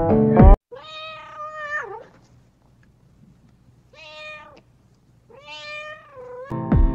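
Keyboard background music cuts off, then a cat meows three times, each call rising and then falling in pitch, the first and last longer than the middle one; the music comes back near the end.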